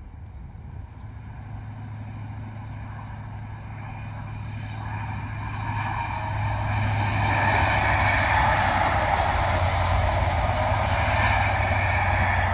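CrossCountry HST with Class 43 power cars and MTU diesel engines passing at speed. The deep engine drone and the rushing wheel-on-rail noise grow louder over the first seven seconds as it approaches, then stay loud as the train runs by.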